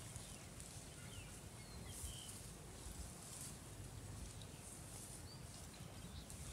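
Quiet rural field ambience: a low steady rumble with a few faint, short bird chirps, mostly in the first half.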